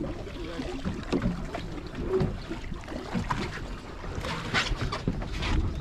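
Wind buffeting the microphone and water sloshing against a drifting boat's hull, with scattered small knocks and clicks.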